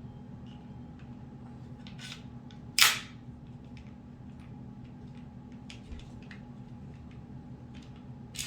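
Taurus G3 9mm pistol parts being fitted together during reassembly: a few light metallic clicks, and one loud, sharp metal clack about three seconds in.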